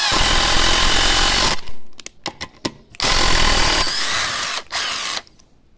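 Parkside PDSSA 20-Li A1 cordless impact driver driving a 6×50 mm hex-head screw into a wooden beam through a 10 mm socket. It runs in two long bursts with a few short trigger blips between, the motor whine rising in pitch during the second burst, and stops suddenly about five seconds in.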